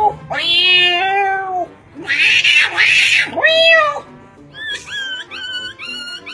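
A man imitating a cat with his voice: a drawn-out meow, two harsh noisy yowls, and another short meow. From about four and a half seconds in comes a quick run of short, evenly spaced high notes, about three a second.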